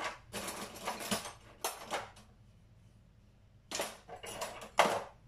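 Kitchen utensils and dishes clattering and knocking against each other, in two spells of handling with a short quiet pause between them.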